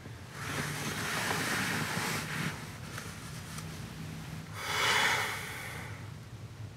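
A low steady hum inside a car cabin, with two long rushes of noise: one starting just after the start, and a louder one about five seconds in.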